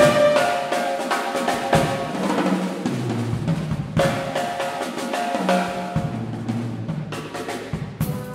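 Drum kit playing a busy solo passage: rapid snare and tom strokes with bass drum hits.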